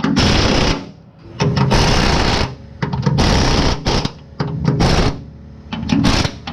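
Air impact wrench running a bolt up into a transmission crossmember in about six short bursts, with brief pauses between them.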